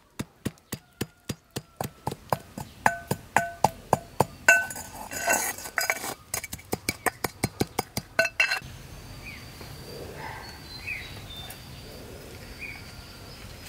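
Metal pestle pounding in a metal mortar: a steady run of ringing clinks, about three or four a second, which stops about eight and a half seconds in. After that, birds chirp and insects buzz faintly.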